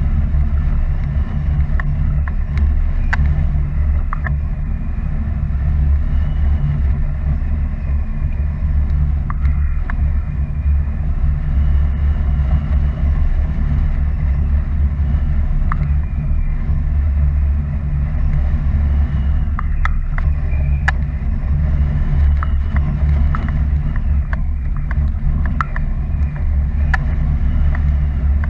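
Steady low rumble of wind rushing over an action camera's microphone in paraglider flight, with a few faint scattered clicks.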